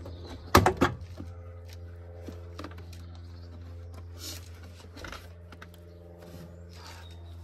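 Plastic retaining clips of a BMW E46 door card snapping loose as the panel is pulled off the door: two sharp snaps about half a second in, then fainter clicks and rustling as the panel is handled. A steady low hum runs underneath.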